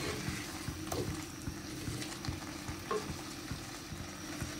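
Wooden spoon stirring a thick curry in a clay pot, with soft scraping and a few light knocks against the pot, over a low steady hiss.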